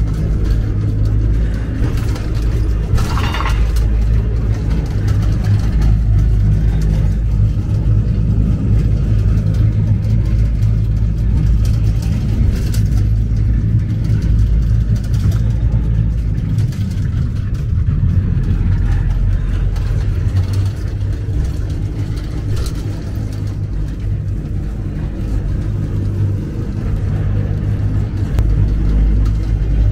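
The Glória funicular car running down its steep rail track, heard from inside the car: a steady low rumble with occasional clicks and rattles.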